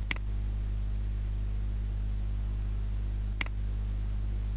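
Two sharp computer mouse clicks, one right at the start and one about three and a half seconds in, over a steady electrical hum and hiss.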